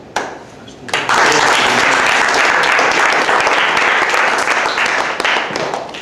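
Small audience applauding, starting about a second in and dying away near the end.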